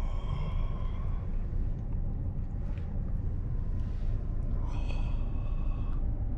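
Steady low rumble of a car cabin, with faint higher tones near the start and again about five seconds in.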